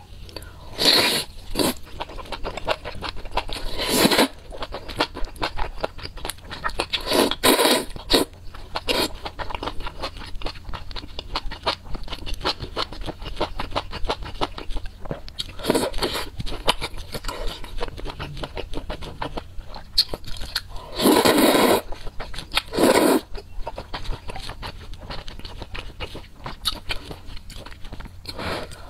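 Close-miked eating of wide noodles in spicy soup: wet chewing and smacking mouth sounds, broken several times by loud slurps of noodles.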